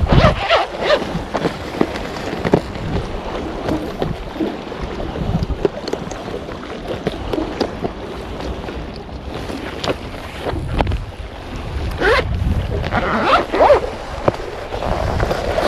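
Wind buffeting the microphone over the wash of the sea, with intermittent rustles and clicks as gloved hands handle a plastic-fronted case of squid jigs.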